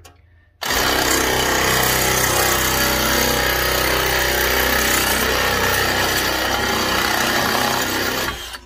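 Electric drill driving a Dicfeos double-headed nibbler attachment as it punches its way through thin 27-gauge copper sheet. It runs steadily and loudly, starting sharply about a second in and stopping shortly before the end.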